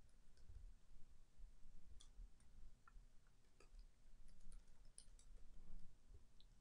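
Faint, irregular clicks of computer keyboard keys as a short command is typed.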